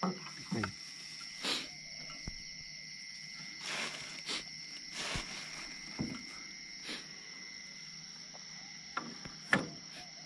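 Night insects chirring steadily in two high pitches, with scattered knocks and a few short swishing sounds.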